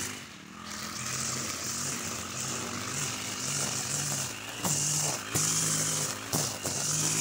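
Petrol brush cutter with a nylon trimmer line, its engine rising and falling in speed as the throttle is worked while cutting grass. The engine drops back just after the start, then runs up again, with hissing bursts of the line whipping through the grass at the faster stretches.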